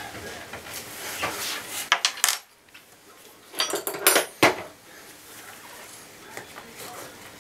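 Metal tool clinking and scraping against a bathtub faucet's valve stem and trim, in two clusters of sharp clinks with a short ring, about two seconds in and again about four seconds in, then quieter handling.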